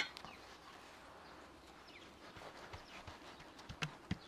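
A sharp click as a metal spoon is set down on a wooden board. This is followed by faint handling of dough and two soft taps near the end as hands press the folded meat pie down on the board.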